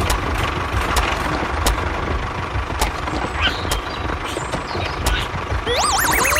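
A vehicle engine idling steadily with a low rumble, with scattered sharp clicks. Near the end a warbling tone starts and glides upward.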